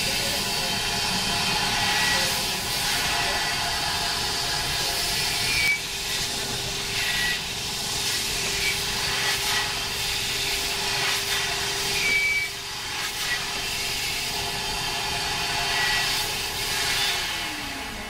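Opticwash eyeglass-cleaning machine running its cycle: a steady hiss of its jets in the chamber. From about six seconds in there is also a steady motor hum, which drops in pitch near the end as the machine winds down.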